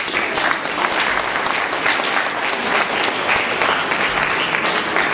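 Audience of students applauding, many hands clapping together.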